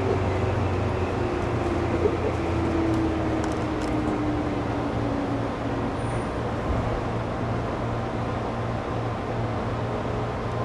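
Running noise of a 211 series electric train heard from inside the driver's cab as it slows through a station: a steady low hum and rumble, with a whine that falls in pitch over the first six seconds or so as the speed drops.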